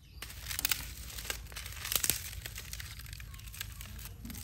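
Crinkling, crackling handling noise with sharp clicks, bunched about half a second and two seconds in, over a steady low rumble.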